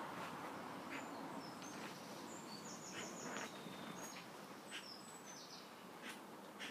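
Faint outdoor background noise with small birds chirping in short high bursts through the middle, and a few soft clicks.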